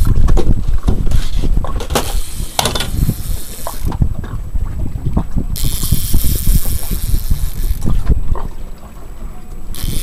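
Wind buffeting the microphone in a heavy, uneven rumble, over water splashing and slapping against a small boat's hull on a choppy bay.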